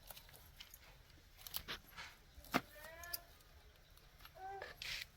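Faint handling sounds of vegetables being picked in a garden: scattered small snaps and clicks of stems and leaves, one sharper snap, and a brief rustle near the end. Two short pitched chirps sound a little after the snap and again later.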